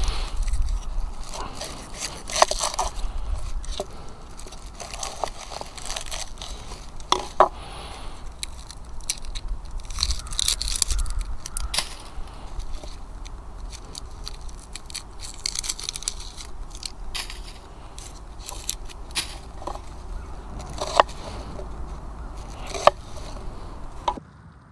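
Knife cutting and scraping on a wooden cutting board as raw beaver meat is sliced, an uneven run of scrapes and sharp clicks.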